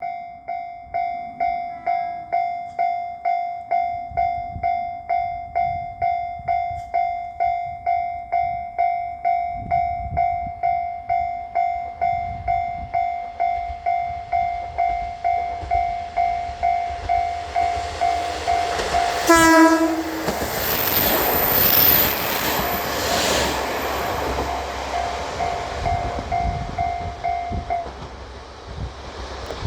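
Japanese level-crossing warning bell ringing steadily at about two strokes a second. About 19 seconds in, the Ibusuki no Tamatebako, a KiHa 47/140 diesel railcar, gives a short horn blast and then passes over the crossing with loud train noise for several seconds. The bell stops near the end.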